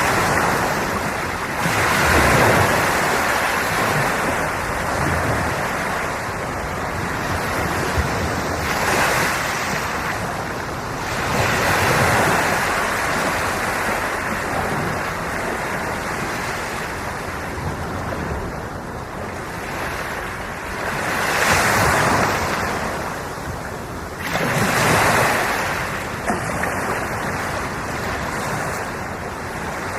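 Sea waves breaking and washing on the shore. The surf swells and falls back every few seconds, with about five louder surges.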